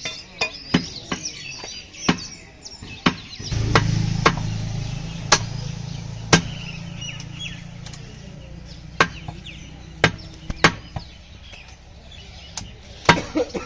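Heavy butcher's cleaver chopping beef on a wooden log chopping block: sharp, irregular chops, roughly one a second. A low, steady hum comes in about three and a half seconds in and slowly fades out.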